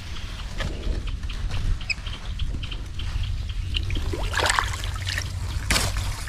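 Water trickling and sloshing, with two louder splashes about four and a half seconds in and near the end, over a low steady rumble.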